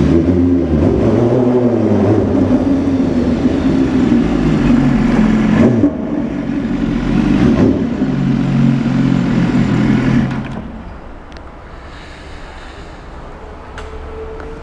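BMW S1000RR superbike's inline-four engine running loud and being revved, its pitch rising and falling several times. About ten seconds in the sound drops away to a much quieter level.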